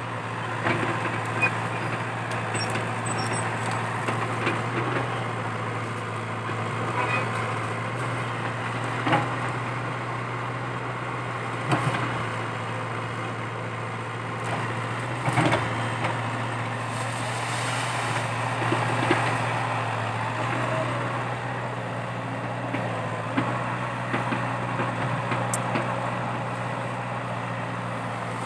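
Komatsu PC80 excavator's diesel engine running steadily under work, with scattered sharp knocks and cracks, the loudest about twelve and fifteen seconds in.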